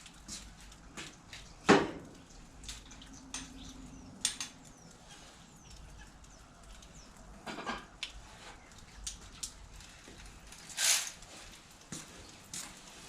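Scattered clinks and knocks of hand tools and loosened metal parts during engine disassembly, with one sharp knock about two seconds in and a short hiss-like scrape near the end.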